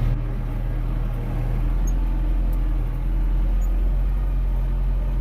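Tractor engine running steadily at a low drone, picking up slightly about three seconds in.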